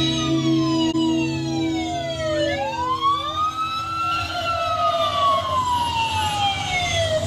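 Several police car sirens wailing together, their overlapping tones sliding down and then rising and falling again.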